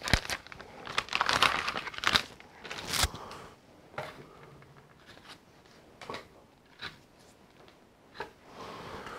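Plastic packaging bag crinkling as toy parts are unwrapped, densest in the first three seconds, then scattered light clicks and rustles as the plastic pieces are handled.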